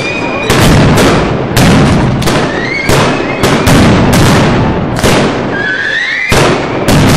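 Ground-level fireworks going off in a rapid run of loud bangs, about one to two a second, with short rising whistles between them.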